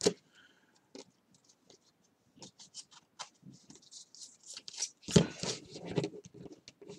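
Stack of paper baseball trading cards being flipped through by hand, the card edges giving quick light clicks and rustles. The handling gets busier and louder about five seconds in, as cards are shuffled and laid down on the table.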